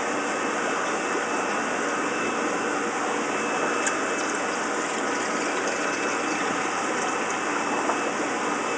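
A steady mechanical whir and hiss with a faint high whine, and a few light clicks about four seconds in.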